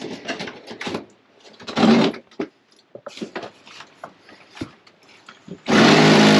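Knocks and clatter of handheld work, then a handheld power tool runs in one steady burst of about a second and a half near the end.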